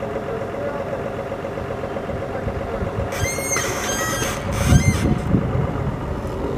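An engine idling steadily, with a series of high-pitched metallic squeals from about three to five seconds in and a few low thumps near the end of them.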